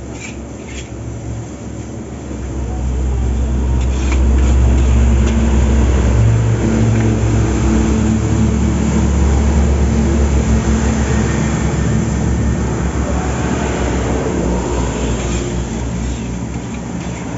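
A heavy vehicle's engine rumbling low as it passes on the road, building up about two seconds in and easing off near the end, over the scrape of a spatula in a steel wok.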